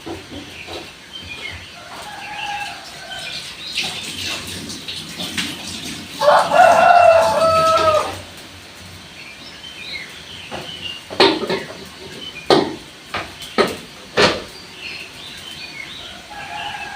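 A rooster crows once, a loud call of about two seconds starting some six seconds in, with shorter bird chirps around it. Four sharp knocks come in the second half.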